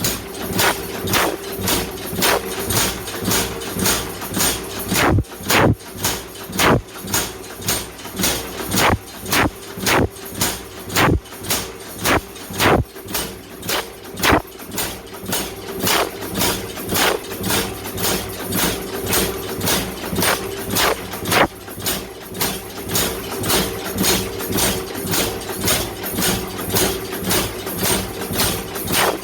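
Repeated hammer blows on hot wrought iron being forged, about two a second and uneven in strength, over a steady mechanical hum.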